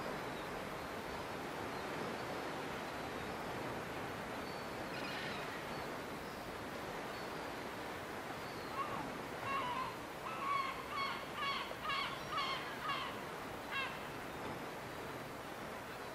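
Seagulls calling over a steady background rush of sea and wind. A few calls come about five seconds in, then a run of about ten repeated calls, roughly two a second, from about nine seconds in.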